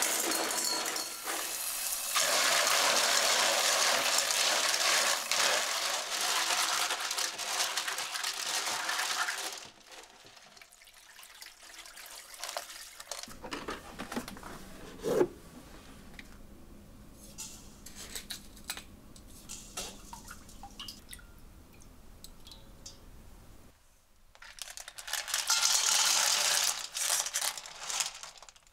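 Kitchen tap running into a stainless-steel sink as cockles are rinsed, for about ten seconds. Then come quieter clicks and handling clatter with a brief squeak midway, and the tap runs again for a few seconds near the end.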